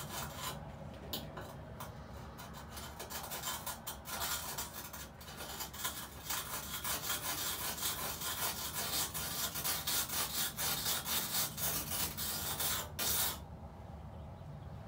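Wet pumice scouring stick rubbed back and forth on the metal surface of a Magic Chef stove: a rapid, gritty scraping rasp that grows louder about halfway through and stops abruptly near the end. The stick is abrasive enough that it starts to scratch the stove's finish.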